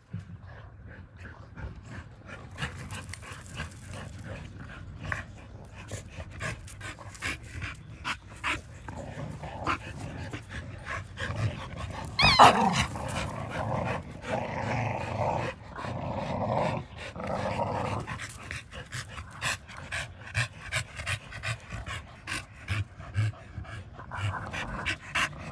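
Puppies play-fighting, growling and panting, with frequent scuffs and knocks from paws and bodies in the dirt. A short wavering cry about halfway through is the loudest sound.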